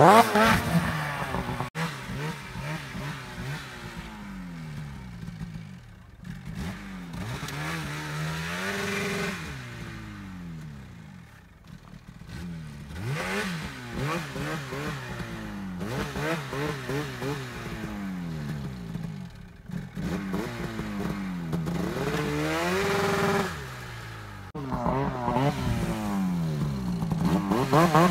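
Mountain snowmobile's two-stroke engine revved up and down over and over as it is ridden through deep powder, the pitch climbing and falling every second or two. It grows louder as the sled comes close near the end.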